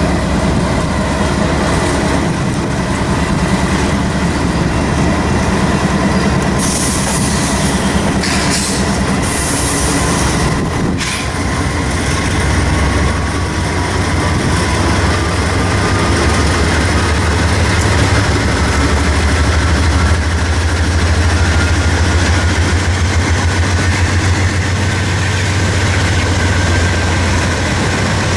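Several Norfolk Southern diesel locomotives hauling a freight train pass close by, their engines running with a steady deep rumble that grows heavier about halfway through as the units come alongside. A faint whine slowly rises in pitch underneath, and a few brief hissing stretches come between about 6 and 11 seconds in.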